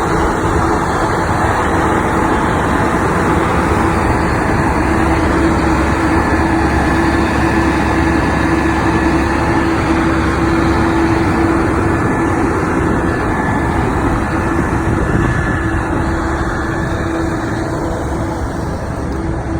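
A heavy engine running steadily, a little quieter near the end.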